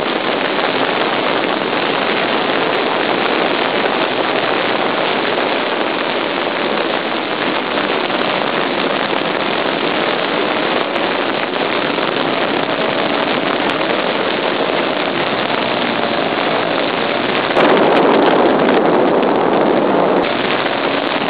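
Small internal-combustion engine of a radio-controlled model airplane running in flight, heard from a camera mounted on the wing, with wind noise on the microphone. It gets louder about eighteen seconds in and eases back about two seconds later.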